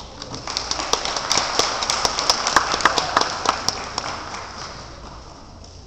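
Audience applauding, with some sharp claps close by, dying away over the last two seconds.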